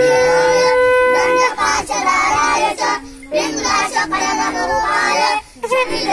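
A steady, held horn-like note ends about a second and a half in, followed by high-pitched singing with a wavering pitch, broken briefly twice.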